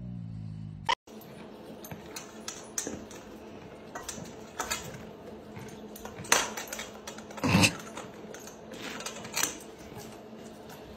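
A horse eating from a steel feed bowl: irregular clinks and knocks of the metal bowl and the crunching of carrots and apples, with a few sharper knocks in the second half. A dog's drawn-out vocal sound ends about a second in.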